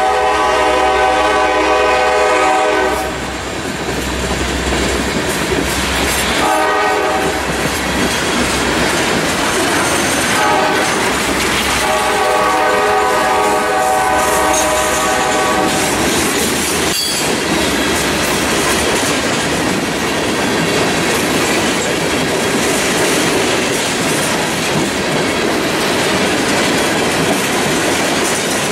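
Freight train passing a grade crossing. The locomotive's air horn sounds a long blast, two short ones and another long blast over the first half or so, while tank cars and hoppers roll by with steady wheel noise and clatter over the rail joints. A single sharp clank comes a little past halfway.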